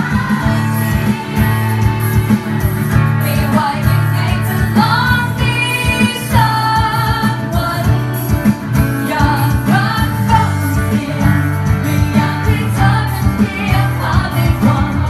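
A woman singing a pop song live into a microphone, amplified through PA speakers, accompanied by an acoustic guitar.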